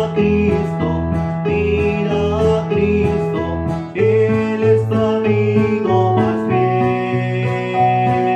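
Acoustic guitar strumming over sustained electronic keyboard chords, playing a slow worship song, with a man's voice singing along. The chords change about four seconds in and again past six seconds.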